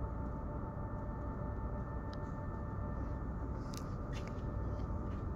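Steady industrial hum: a low drone with a few steady high tones held over it. A few light clicks and knocks come in near the end.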